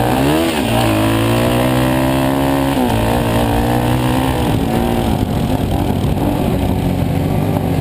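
Dirt bike engine under hard throttle. The revs dip briefly and climb back, hold high, drop sharply about three seconds in, then rise and fall with the throttle.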